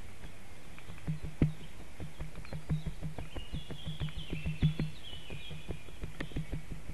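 Irregular clicks and knocks as a black stork shifts on its stick nest over the eggs. About halfway through, a small songbird in the surrounding forest sings a short song of descending notes, and a low hum comes and goes underneath.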